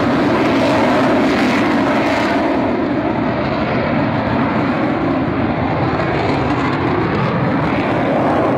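AV-8B Harrier's Rolls-Royce Pegasus turbofan, a loud, steady jet noise as the jet flies away. The hiss in the sound fades after about two and a half seconds, leaving a lower, duller rumble.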